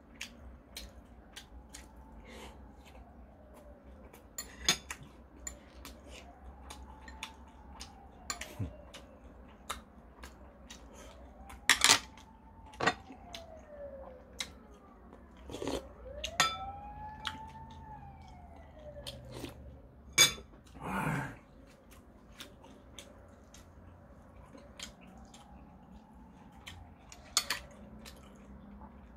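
Metal spoon and chopsticks clicking and clinking against glass and ceramic dishes as food is picked up and eaten, with quiet chewing between. Behind it a faint wailing tone rises and falls every few seconds, like a distant siren.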